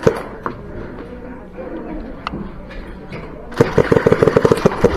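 Airsoft gunfire: a few single sharp cracks, then about three and a half seconds in, a rapid full-auto burst of shots in quick, even succession.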